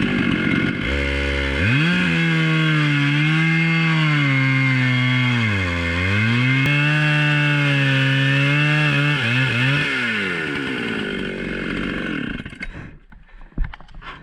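Husqvarna chainsaw on an Alaskan chainsaw mill running at high revs, cutting through a log. Its pitch rises about a second in, dips briefly about six seconds in, wavers near ten seconds, then falls away and stops near the end.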